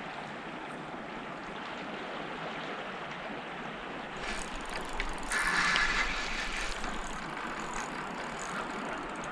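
Steady rush of river water, then from about four seconds in a fishing reel being cranked: a rapid, fine clicking whir of the reel's gears as a lure is retrieved, loudest a second or two later.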